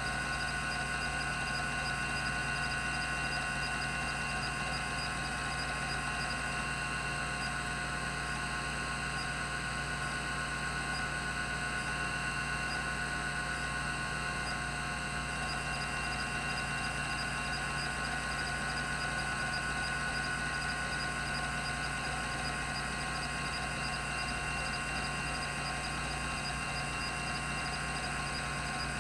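Rodime RO352 10 MB 3.5-inch hard drive running, its spindle turning at 3600 rpm, giving a steady hum and whine made of several fixed tones.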